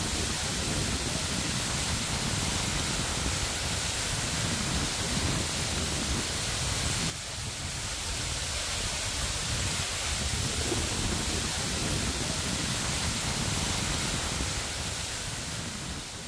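Steady rushing of an artificial waterfall pouring down a tall rock cliff, with a deep rumble underneath; the level drops a little, suddenly, about seven seconds in.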